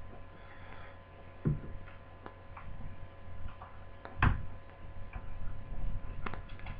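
Scattered small clicks and taps of a laptop's plastic lid parts and small tools being handled, with one louder knock about four seconds in, over a steady electrical hum.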